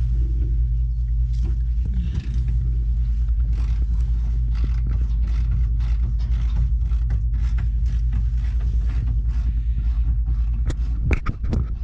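Irregular metallic clicks and creaks of hand tools working 12 mm bolts loose on an old Honda CRX body, over a steady low rumble.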